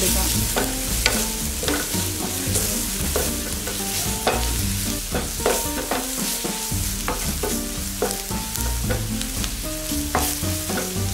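Spatula scraping and knocking around a nonstick frying pan as onions and spice powders are stirred and sautéed in hot oil, with a steady sizzle underneath. The strokes come about twice a second.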